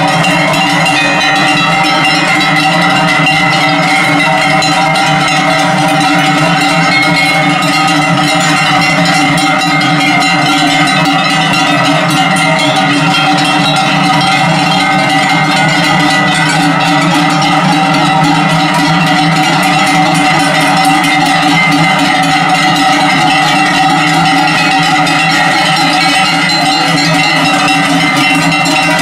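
Many cowbells worn by a walking cattle herd clanging together in a continuous, loud, dense jangle.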